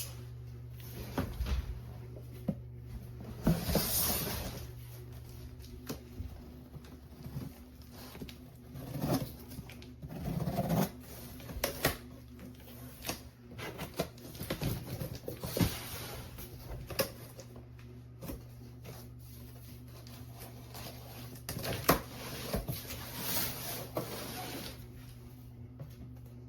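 A cardboard monitor box being opened and its packaging handled: irregular rustling, scraping and sharp knocks, over a steady low hum.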